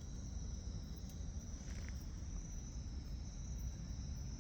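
Night insects trilling steadily in two high pitches, over a constant low rumble.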